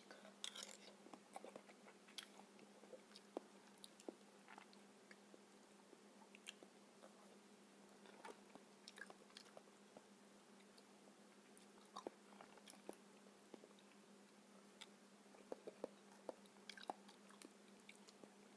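Faint, close-up mouth sounds of someone chewing soft ripe papaya, with scattered small clicks and smacks, mixed with a metal spoon scooping the fruit's flesh from its skin.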